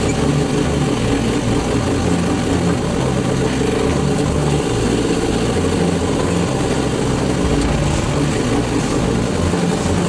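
Backhoe loader's diesel engine running steadily as the machine drives forward with its front loader bucket.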